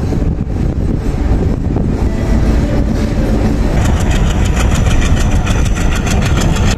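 Diesel locomotive-hauled passenger train running by, a heavy low rumble of engine and wheels. About four seconds in, a rapid, even clatter of wheels on the rails joins it, some seven beats a second.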